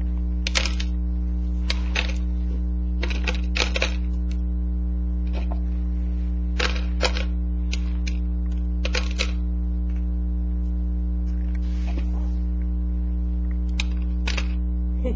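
Steady electrical mains hum under irregular sharp clicks and taps, some in quick pairs, from a toddler's hands knocking against a cardboard oats canister and scattering dry rolled oats on a tile floor.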